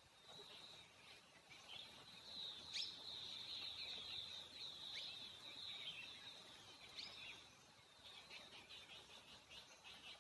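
Baby squirrel giving faint, high-pitched squeaks and chirps while it is fed milk from a paintbrush: a run of dense chattering through the middle, then separate short chirps near the end.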